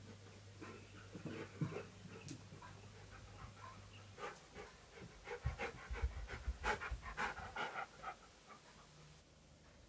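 Husky-malamute dog panting in a run of short quick breaths, with a few low thumps about halfway through as the dog moves close by.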